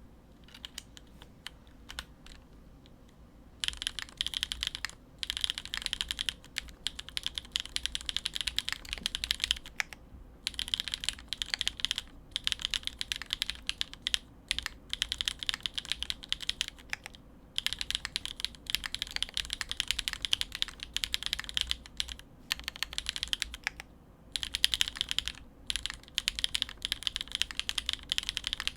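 Fast typing on a custom mechanical keyboard with Gateron RAW linear switches, an O-ring mount and a polycarbonate plate under GMK keycaps. A few single keystrokes come first, then quick runs of keystrokes broken by short pauses.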